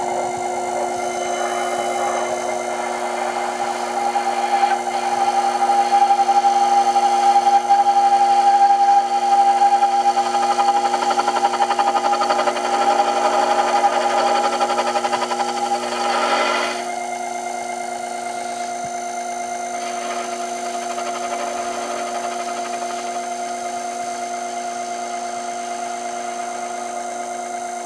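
Sherline mini metal lathe running with a steady motor whine while the tool takes a dry facing cut across the end of the spinning metal stock. The cutting adds a louder, rough noise from about four seconds in, which stops suddenly about sixteen seconds in as the tool comes off the work, leaving the lathe running on its own.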